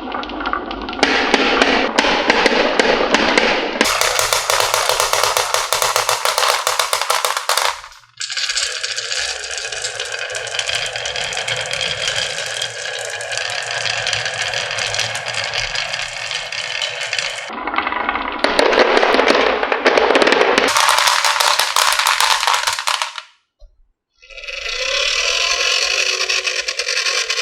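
Many marbles clattering and rolling down a HABA wooden marble run, a dense stream of rapid clicks on wood, changing abruptly several times as shots cut.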